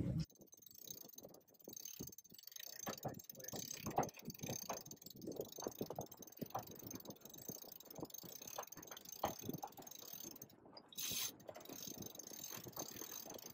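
Irregular clicks, taps and creaks from the rigging, sheets and deck fittings of a Fountaine Pajot Helia 44 sailing catamaran working under sail.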